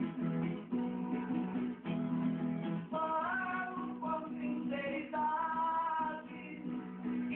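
Acoustic guitar strumming chords, with a singing voice coming in about three seconds in.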